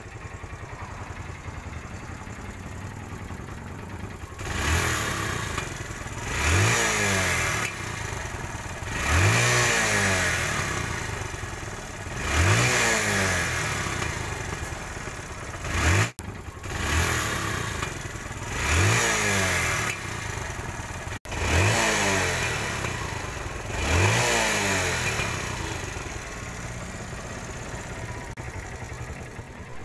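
TVS Star City 110 cc single-cylinder four-stroke motorcycle engine idling, then revved in about eight quick throttle blips. Each time the throttle is let go and the revs fall, the exhaust pops: a misfire in the silencer on closing the throttle.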